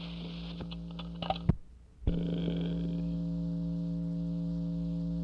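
Steady electrical hum on an old tape transfer, with scattered clicks. About a second and a half in it cuts out briefly, then returns with a click and runs on steadily.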